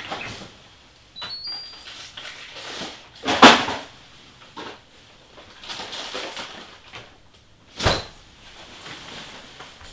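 A cupboard being opened and shut while someone rummages for something, with a loud knock about three and a half seconds in and another about eight seconds in, between softer knocks and rustles.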